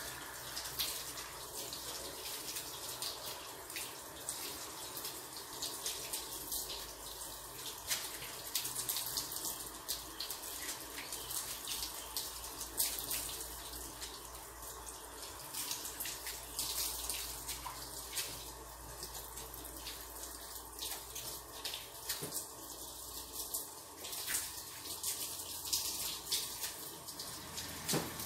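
Water running and splashing steadily, with irregular crackles of spray.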